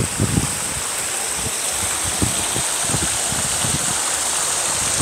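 Plaza fountain jets splashing into a stone pool: a steady rush of falling water, with scattered low thumps underneath.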